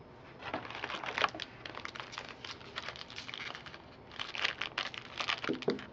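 Foil wrapper of a baseball card pack crinkling and crackling as it is handled, in quick irregular runs of sharp crackles, thickest about a second in and again near the end.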